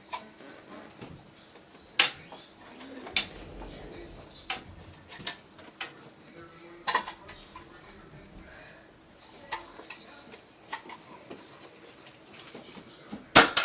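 Scattered sharp clicks and knocks from toy foam-dart blasters being fired and handled: about eight separate ones, irregularly spaced, the loudest a quick double click near the end, over a steady hiss.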